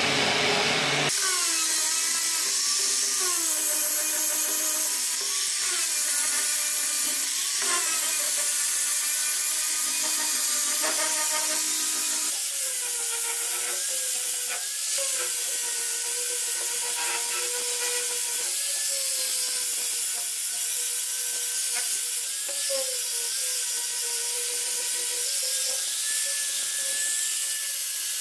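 Angle grinder grinding and polishing the steel blade of a meat chopper, its whine wavering in pitch as the pressure on the blade changes. The sound changes abruptly about a second in and again near the middle, as the disc changes.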